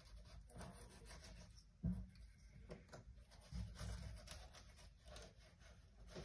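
Small knife cutting raw perch fillets on a countertop: faint scraping and soft taps of the blade, with a louder knock about two seconds in.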